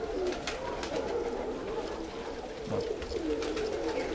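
Racing pigeons cooing in their loft, several low, wavering coos overlapping, with scattered light clicks.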